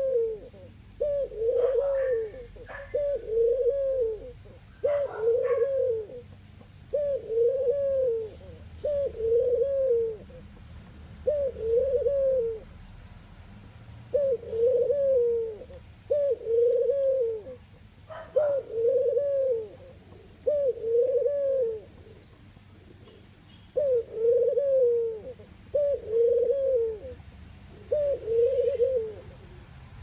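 Ringneck dove cooing: a long run of low, rolling coos, about one a second, each rising and falling. The run breaks off briefly twice.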